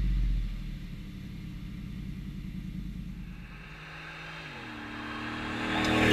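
2015 Ford F-150's 5.0L V8 through a Magnaflow dual side-exit exhaust with resonator delete. A rev dies away near the start. Then the truck is heard coming up a gravel road, its engine note stepping down once partway, and it grows louder until it passes close at the end with a rush of tyres on gravel.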